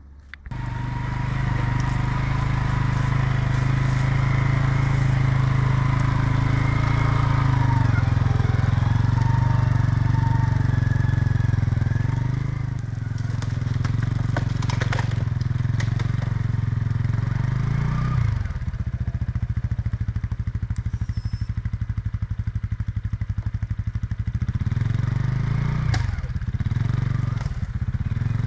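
Four-wheeler (ATV) engine running steadily, its pitch dipping and coming back up a few times as the throttle changes.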